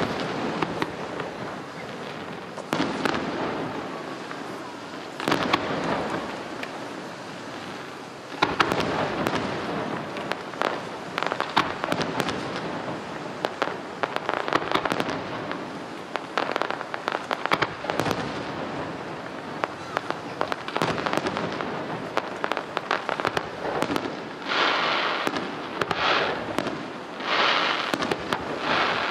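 Aerial fireworks display: shells bursting in the sky with repeated bangs and crackling. There is a dense run of reports in the middle, and near the end a string of bursts about once a second.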